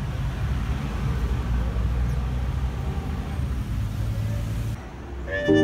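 Steady low rumble of city road traffic. Near the end it drops away and music begins.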